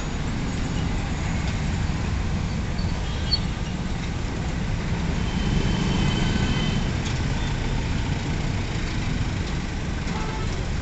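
Steady road traffic of cars and motorcycles passing through a city junction: engines and tyres rumbling, getting a little louder near the middle as vehicles pass close.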